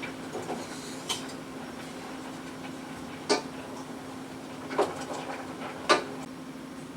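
Four short light knocks and clinks of cookware being handled, spread a second or so apart, over a steady low hum.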